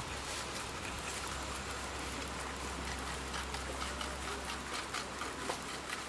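O gauge live steam locomotive and wagons running past on garden-railway track: a steady hiss with a rapid patter of small clicks.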